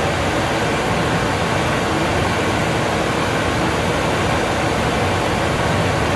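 Steady, even rushing noise with no distinct knocks or voices, like a fan or air handler running.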